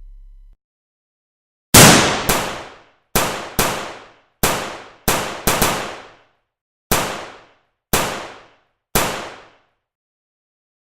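About eleven sharp gunshot-like bangs at uneven intervals, each ringing down within about half a second, then digital silence for the last second and a half.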